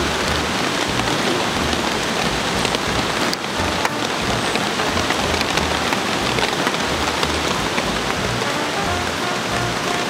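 Steady rain, an even hiss with scattered drops ticking.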